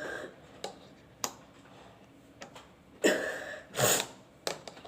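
A woman sneezing, brought on by tickling her nose with a grass broom: two loud bursts about three and four seconds in, with a few faint clicks and sniffs before them.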